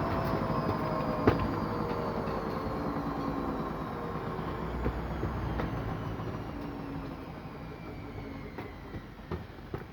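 Washing machine drum spinning down at the end of a spin cycle: a motor whine with several tones falling slowly in pitch as it gets quieter. There is a sharp click about a second in and a few light ticks near the end. The machine is rated for 1200 rpm, but the owner says its spin sounds like a 1000 rpm model.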